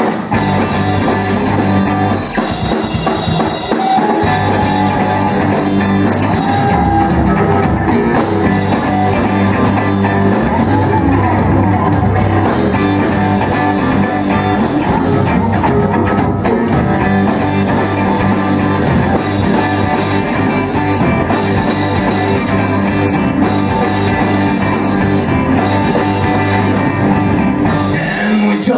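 A rock band playing live on stage: electric guitars and a drum kit, loud and steady throughout, with a heavier low end coming in about four seconds in.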